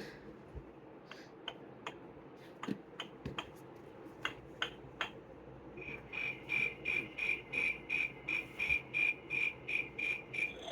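Recorded cricket chirping from a children's sound book, played through its small built-in speaker: a regular run of short high chirps, about three a second, starting about six seconds in. Before it come a few faint scattered clicks.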